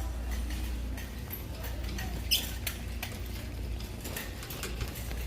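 Store background with a steady low hum and scattered light clicks, and one short, loud, high squeak about two seconds in.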